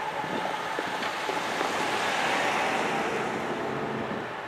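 Loaded 130-car potash train moving away at track speed, its rear GE ES44AC distributed-power locomotives going off down the line: a steady rushing rumble of wheels on rail that swells about halfway through and then eases.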